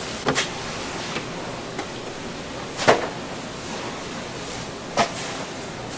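Steady background hiss with a few sharp, short knocks: two close together near the start, the loudest about three seconds in, and another about five seconds in.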